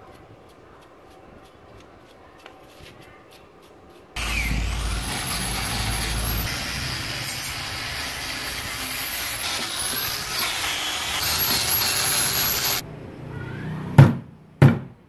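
Small electric grinder with an abrasive disc scouring paint and rust off a laminated steel core: a loud grinding noise with a high whine that wavers as the disc is pressed on, stopping abruptly. It is preceded by faint hand scraping and followed by two sharp knocks.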